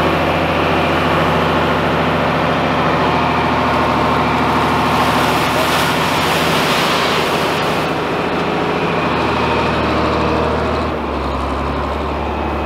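John Deere farm tractor's engine running steadily close by. Around the middle, a load of dirt and gravel pours out of its front-loader bucket into the creek with a rushing, splashing hiss, and near the end the engine settles to a lower note.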